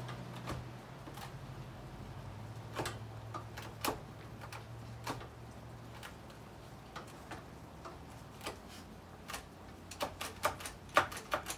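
Scattered clicks and light knocks of hands working the chain brake and side cover of a new Coocher 62cc chainsaw, which will not seat because something seems wrong at the chain brake. The clicks come sparsely at first, then in a quicker run of sharper ones near the end.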